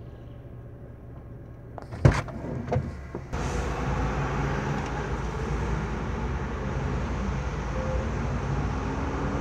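Inside a car: a low steady engine hum, a sharp knock about two seconds in and a smaller one shortly after, then a sudden jump to a louder, steady rush of road and traffic noise.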